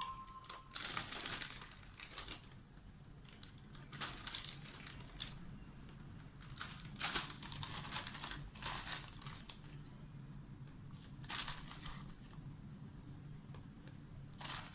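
Wheat flour being scooped and tipped into a bowl with a measuring cup: scattered short rustling and crinkling sounds, a few seconds apart, over a faint steady hum.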